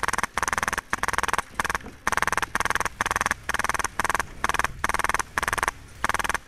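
Airsoft light machine gun firing about a dozen short full-auto bursts, each around half a second of rapid, even shots, with brief pauses between them.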